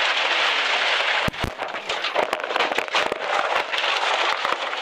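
Gravel and stones pelting a rally car's body and windscreen, heard from inside the cabin as a loud, dense crackle and rattle, with a couple of heavy thumps about a second and a half in.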